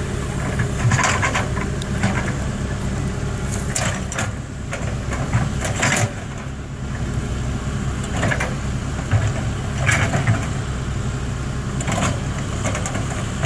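Caterpillar 320 excavator's diesel engine running steadily, with repeated scrapes and knocks every second or two as the bucket works through dirt and debris.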